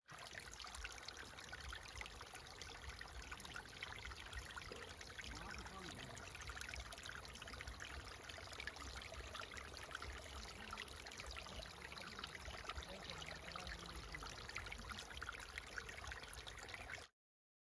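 Running water of a river or stream, a steady rushing with fine trickling.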